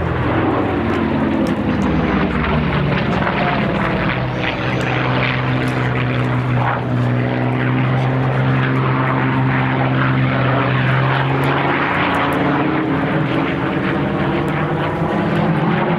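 Piston engines of propeller-driven WWII warbirds flying past in formation: a steady low drone made of several engine tones, their pitch drifting slowly as the aircraft pass.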